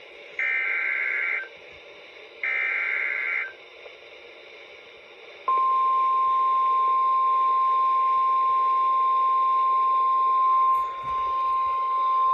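NOAA Weather Radio alert on a weather radio: two one-second bursts of screechy SAME digital header data, then about five seconds in the steady 1050 Hz warning alarm tone starts and holds, heralding a severe thunderstorm warning. Radio hiss runs underneath.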